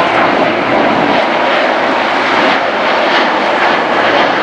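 Jet airliner engines, a loud, steady rushing noise as the aircraft passes close by.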